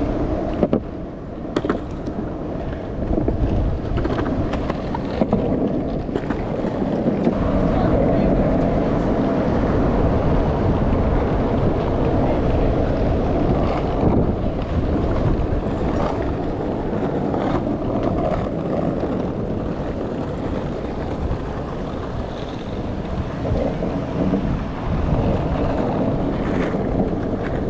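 Skateboard wheels rolling over street pavement in a steady rumble, with wind buffeting the microphone and a few sharp knocks as the wheels cross cracks or joints. Voices are heard faintly in the background.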